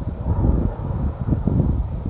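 Low rumble of a V-22 Osprey tiltrotor flying overhead, mixed with wind buffeting the phone's microphone.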